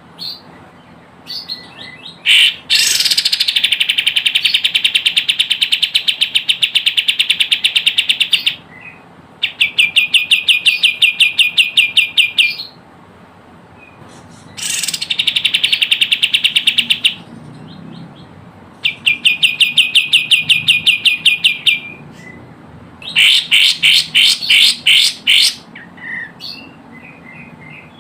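Kapas tembak bird calls played as a lure: loud bouts of fast, rattling chatter, each lasting two to six seconds, repeated about five times with short pauses between.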